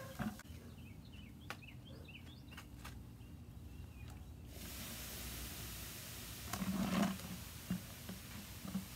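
Baking soda shaken from a cardboard box into a plastic bucket of spent battery acid, with knocks and taps of the box against the bucket and a fizzing hiss that sets in suddenly about halfway through as the soda neutralizes the acid. The loudest knocks cluster about seven seconds in. Small birds chirp in the first few seconds.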